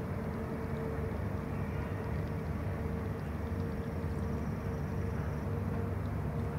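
Steady low rumble of outdoor background noise with a faint continuous hum, like distant traffic or engines heard across open water.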